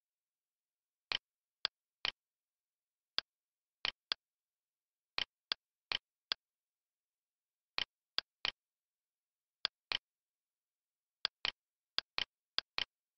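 Computer mouse clicking: about two dozen short sharp clicks in small irregular groups, some in quick pairs.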